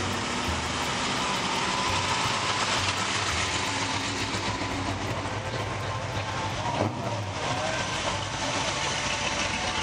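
Engines of classic cars and street rods rolling slowly past one after another, a steady low rumble mixed with broad road and outdoor noise.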